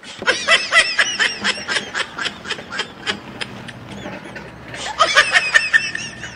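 High-pitched, rapid giggling laugh used as a comic sound effect: a long run of quick, even laughing notes that fades, then a second, louder run about five seconds in.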